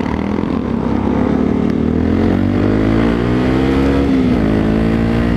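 Motorcycle engine pulling hard under acceleration, its pitch climbing steadily, then dropping sharply about four seconds in at a gear change before rising again, with low wind rumble.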